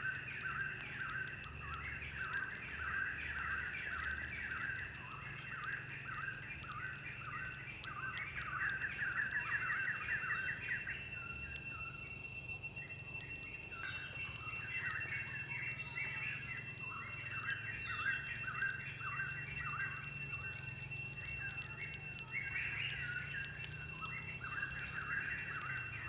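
Birds chirping in quick repeated calls, two or three a second with a brief lull about halfway, over steady high-pitched insect drones.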